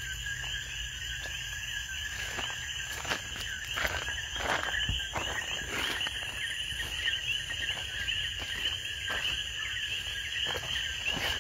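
Dense night chorus of frogs and insects, a steady high chirping. Scattered soft knocks of footsteps and the phone being handled sound over it.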